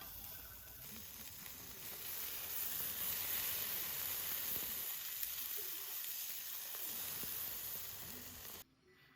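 Food sizzling on a hot camping grill, a dense crackling hiss that grows louder about two seconds in and cuts off abruptly near the end.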